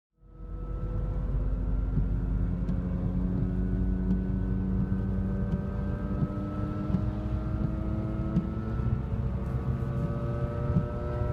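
Audi A4 B8 driving, with a steady rumble of road noise and a drone from a worn front right wheel bearing, several tones in it rising slowly in pitch.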